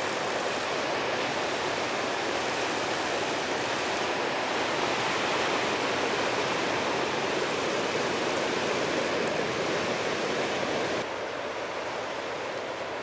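Breaking ocean surf: a steady rushing wash of whitewater, dropping a little in level about eleven seconds in.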